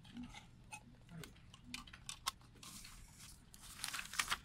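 Hands handling a CD and its cardboard and paper packaging: scattered light clicks and taps, then a brief, louder rustle and scrape of paper and card near the end.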